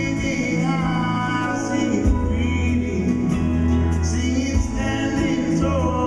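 A live band plays a slow song: a male lead voice sings over acoustic guitar, electric guitar, bass and drums, heard from the audience in a concert hall.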